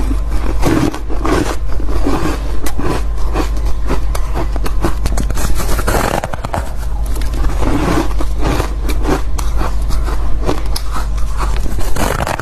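Close-miked biting and chewing of soft, fluffy ice: a dense, continuous run of squeaky crunches and crackles.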